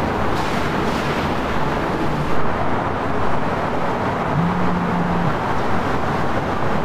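A steady, dense rumble of background noise, with a short low hum a little after four seconds in.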